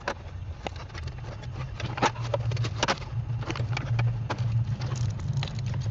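Irregular metallic clicks and clinks of hand tools and small fasteners as a transmission shifter cable bracket is being unbolted, over a low steady hum.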